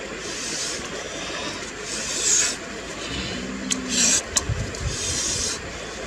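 Hands rubbing and scraping over whole raw fish lying on a large leaf, in several separate scraping strokes.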